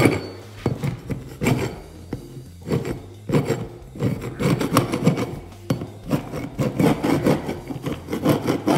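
Metal putty knife scraping at the raised edges of drywall around a hole to knock them down flat, in repeated short strokes. The strokes are spaced out at first and come quicker and closer together from about three seconds in.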